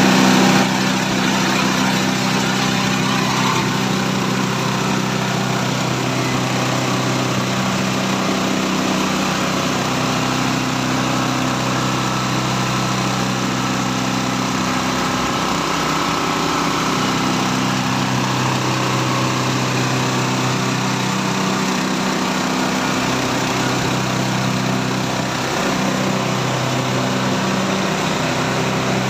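SM 20 multifunction grass chopper machine running steadily, its motor's pitch dipping briefly a few times along the way.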